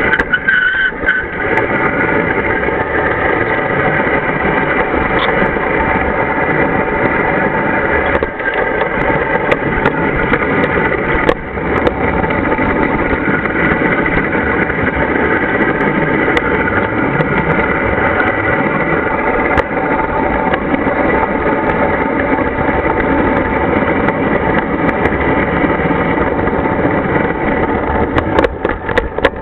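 G scale garden-railway locomotive running along the track, heard from on board: a steady whine of several tones from its drive over a rumble of wheels on rail. A few sharp clicks, about eight and eleven seconds in and near the end.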